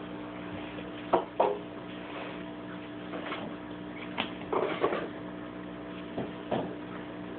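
Dog mouthing and pawing a bullfrog on a tile floor: scattered short taps and slaps on the tiles, two sharp ones about a second in and a cluster near the middle, over a steady hum.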